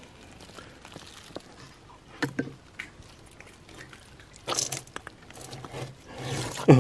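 Scattered clicks and crunches of oyster shells and shelly grit under a hand picking wild oysters off a rock. The loudest crunches come about two-thirds of the way in and again near the end.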